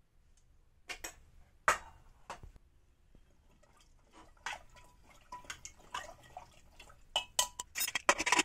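A spoon stirring lotus stem slices, turmeric and water in a pressure cooker: scattered clinks and scrapes against the pot with splashing water. The clinks are sparse at first and come thick and fast over the last few seconds.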